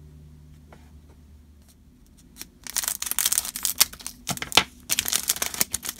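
Crinkly wrapper of a Weiss Schwarz trading card booster pack being handled and torn open, starting about two and a half seconds in with rapid crackling and tearing after a few quiet clicks of cards being set down.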